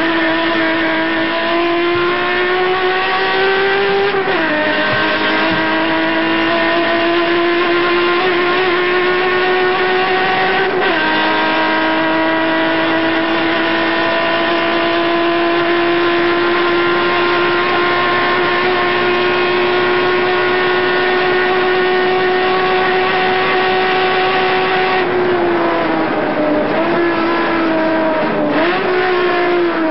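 Turismo Carretera race car's engine heard from inside the car, pulling hard with the revs climbing slowly through the gears and dropping sharply at upshifts about four and eleven seconds in. After a long pull the revs fall and waver near the end as the car slows.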